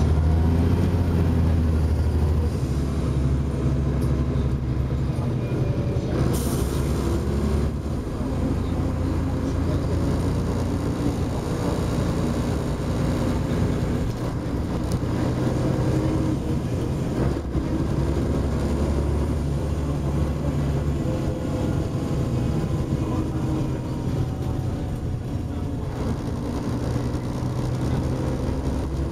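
Volvo Olympian double-deck bus heard from inside its passenger saloon while under way: the engine runs steadily, its note shifting now and then, over road noise. A short hiss comes about six seconds in.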